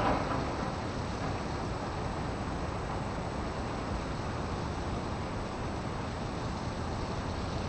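Steady background noise: an even rumble and hiss with no distinct event.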